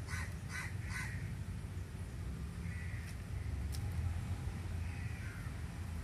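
A crow cawing: three quick caws about 0.4 s apart in the first second, then a couple of fainter caws later, over a steady low background rumble.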